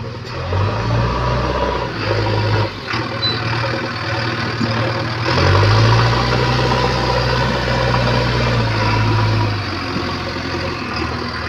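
JCB 3DX backhoe loader's diesel engine running. Its revs rise about half a second in and again around five seconds, then fall back near the end.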